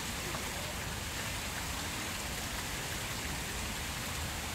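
Tiered fountain: water pouring from the rims of its bowls and splashing into the basin below, a steady, even splashing.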